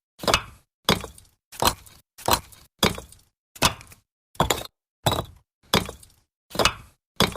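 Bricks being set down one on another while stacking: a steady series of about eleven short, hard clacks, one roughly every 0.7 seconds, each dying away quickly.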